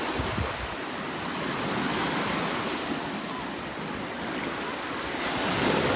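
Ocean surf washing onto a sandy beach, a steady rush that swells louder near the end.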